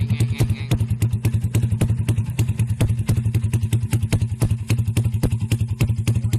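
Honda Grand 130cc single-cylinder four-stroke motorcycle engine idling, with a steady, even run of rapid firing pulses.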